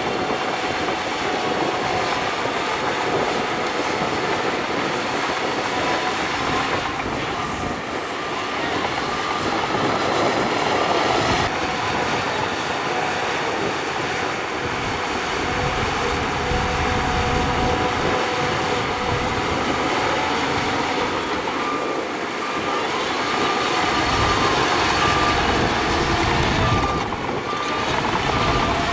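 Shantui crawler bulldozer working, its diesel engine running under load and its steel tracks grinding, with a thin high squeal from the tracks coming and going in the second half.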